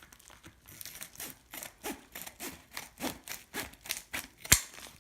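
A package being cut or sawed open by hand: a rhythmic series of short scraping strokes, about three a second, with one sharp loud click near the end.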